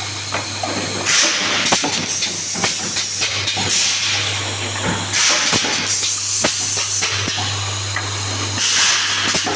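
Automatic confetti filling machine running with a steady low hum and many sharp mechanical clicks. Three bursts of hiss come about a second in, around the middle, and near the end.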